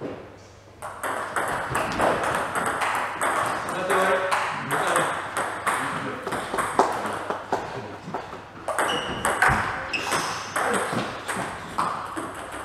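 Table tennis ball clicking back and forth off the paddles and table during a rally, with more ball clicks from games at other tables in the hall.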